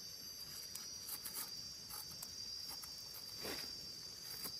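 Steady high-pitched insect drone, with faint scattered clicks and rustles and one short soft sound about three and a half seconds in.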